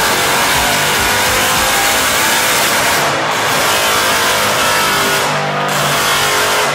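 Mercedes C63 AMG's 6.2-litre V8 running hard on a chassis dyno, loud, through a straight-through exhaust with no silencing, with two brief dips in the sound about three and five and a half seconds in.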